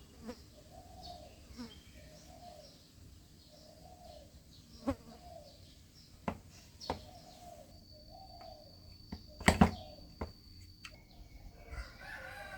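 A chicken clucking in short, evenly repeated calls, with scattered sharp taps and a loud double knock about nine and a half seconds in.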